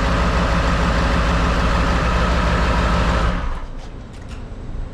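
Ford 7.3 L Powerstroke V8 turbo-diesel idling steadily, running again after a hard start. The engine sound cuts off abruptly about three seconds in, leaving a few faint clicks.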